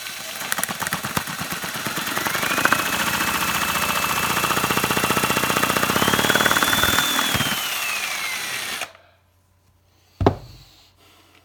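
Drill-driven Lego chainsaw mechanism running: a fast plastic rattle under the drill motor's whine. The whine rises twice and then falls before the sound stops about nine seconds in. A single sharp thump follows about a second later.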